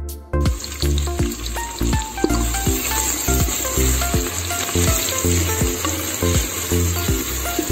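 Chopped onion frying in a stainless steel pot, with a steady sizzle that starts about half a second in, while a wooden spoon stirs it.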